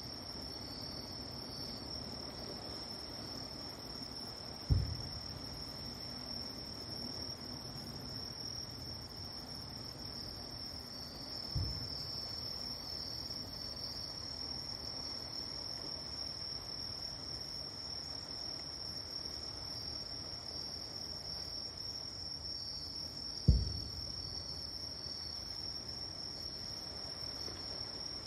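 Distant fireworks bursting: three dull low booms about 5, 12 and 24 seconds in, the middle one faint. Under them, a steady high chirring of night insects.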